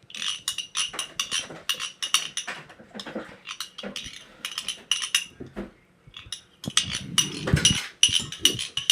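Metal spoon scraping and clinking against a container, over and over, as thick PVA glue is scraped out of it.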